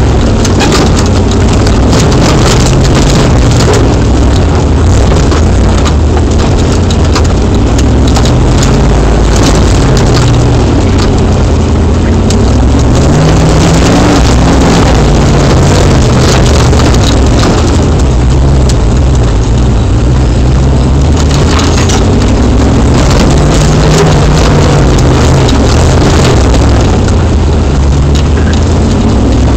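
Land Rover engine heard from inside the cab, running continuously, its pitch rising and falling several times as the throttle is worked along a rutted dirt track. Constant irregular rattles and knocks from the vehicle's body and suspension over the rough ground sound throughout.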